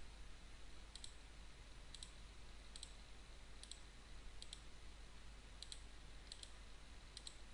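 Computer mouse button clicking faintly, about once a second, each click a quick press-and-release pair, as vertices of a spline line are placed one by one.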